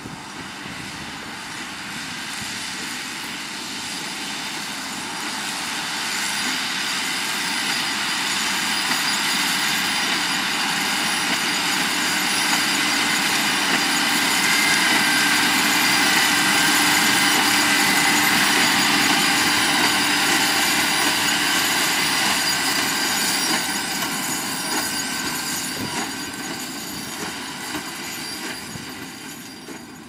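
John Deere 6250R tractor's six-cylinder engine working under load while it pulls a Case IH LB436 HD large square baler baling straw, with the baler's mechanism running. The outfit passes by, growing louder to a peak a little past halfway and then fading.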